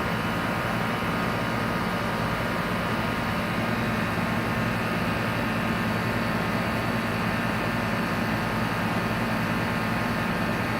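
Outdoor HVAC compressor unit running steadily: an even hum with several steady tones over the whir of its fan.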